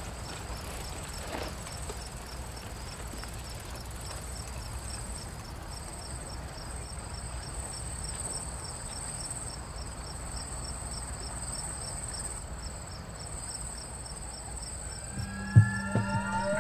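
Crickets and other insects chirping: a high, steady trill that swells and fades, over a fast, even pulsing chirp, with a low rumble underneath. Near the end a low hum comes in with a sharp thump, the loudest moment.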